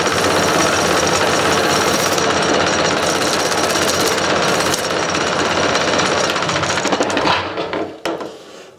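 A strip of abrasive sanding belt held against a wooden workpiece spinning off-center on a wood lathe: a loud rasping with a fast rattle. About seven seconds in the sanding stops and the sound dies away.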